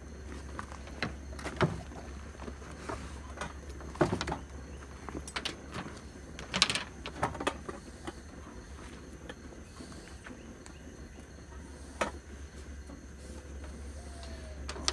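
Canvas bags and a cloth pouch being rustled and unpacked by hand, with scattered irregular clicks and knocks; a steel mess kit is handled near the end.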